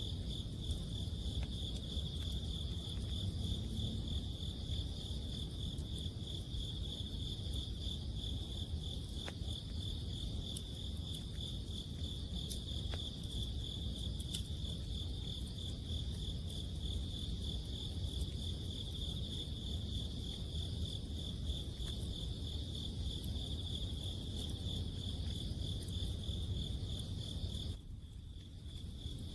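Autumn crickets trilling steadily in one high, finely pulsing note, over a low steady rumble, with scattered faint crackles from a wood campfire. Near the end everything drops away for about a second, then resumes.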